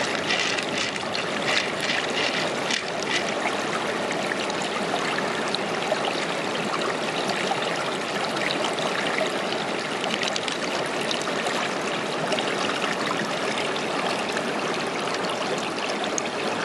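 Steady rush of running water, like a small stream. Over the first few seconds there is light clicking, pearls knocking together in the shell as fingers stir them.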